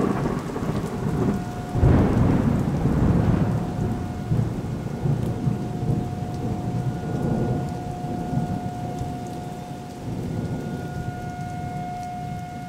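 Thunderstorm: steady rain with rolling thunder, a sharp clap about two seconds in that rumbles on and slowly fades toward the end.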